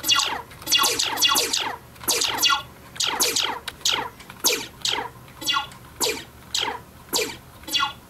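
Roccat Swarm software's 'beam sound' key-press feedback, played through PC speakers: a short synthesized zap that falls quickly in pitch for each key struck, about two a second.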